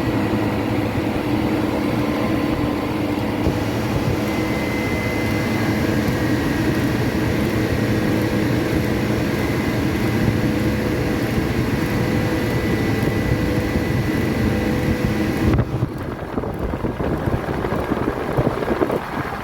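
Cold-storage refrigeration condensing unit running, its compressor back on after the refrigerant valve was reopened following a pump-down: a steady mechanical hum with faint steady whine tones and air noise. About fifteen seconds in, the sound changes suddenly and the high hiss drops away.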